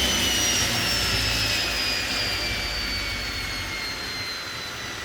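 Table saw motor and blade spinning down after being switched off, its whine falling steadily in pitch and fading.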